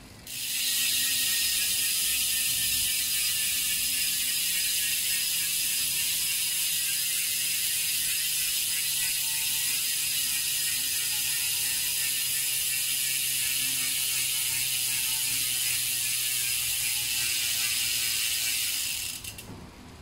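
Speedone Torpedo rear hub freewheeling, its ratchet clicking so fast it makes a loud, continuous buzz as the wheel spins with the cassette still. It starts abruptly, falls slowly in pitch, and fades out near the end.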